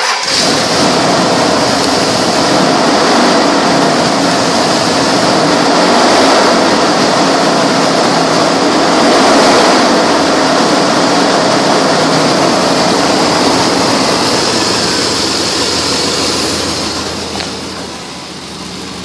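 2000 Dodge Dakota's V8 engine, with about 197,700 miles on it, running steadily at idle just after starting, heard with the hood open. It grows somewhat fainter near the end.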